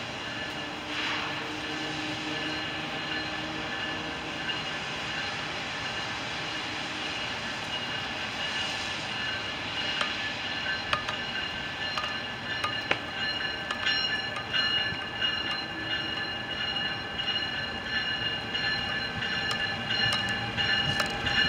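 NJ Transit ALP-46A electric locomotive approaching with its train: a steady high whine with wheel clicks on the rails that grow louder, the locomotive arriving alongside near the end.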